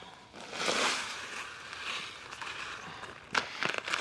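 A paper fertilizer bag rustles as it is handled and tipped over a push spreader's plastic hopper, with a run of sharp clicks near the end as the granules begin to pour in.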